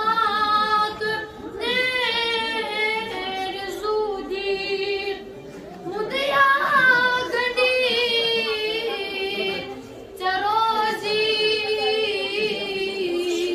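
A boy singing a Kashmiri naat solo and unaccompanied into a microphone, in long, sustained melodic phrases with short pauses for breath between them.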